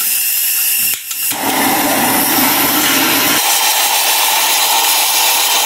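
Handheld gas torch burning with a steady hissing rush as its blue flame scorches oak blocks. There is a short break about a second in, then the flame runs steadily again.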